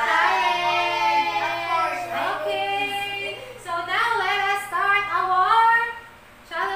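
A girl and a woman singing in high voices, with long held and sliding notes.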